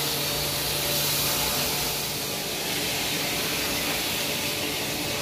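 Potato pieces frying in hot oil in an iron kadhai, giving a steady sizzling hiss.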